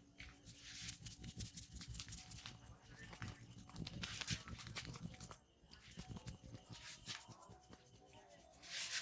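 Hands rubbing and patting skin and hair in a head massage: a run of soft rubs and taps, with a short pause about five and a half seconds in.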